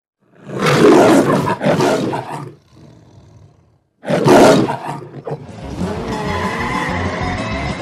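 The Metro-Goldwyn-Mayer logo lion roaring three times, two roars close together and then a third after a short pause. A little over two-thirds in, a steady cartoon soundtrack begins.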